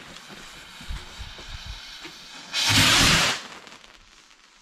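Pyroland Nitroglycerin silver-tail firework rocket launching: one loud rushing hiss of just under a second, about two and a half seconds in, that fades as the rocket climbs.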